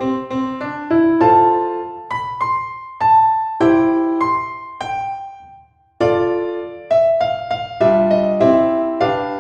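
Background piano music: a gentle melody of struck notes and chords, fading out briefly about five and a half seconds in before the playing resumes.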